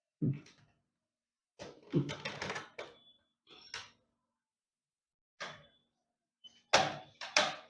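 Clicks and knocks of laptop parts being handled and pressed back together during reassembly: several short separate clusters, with two sharp knocks near the end the loudest.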